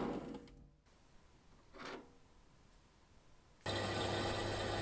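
A metal lathe running down to a stop, then near silence. About three and a half seconds in, a drill press starts countersinking a cast-iron part, loud, with a thin high-pitched squeal from the cutter.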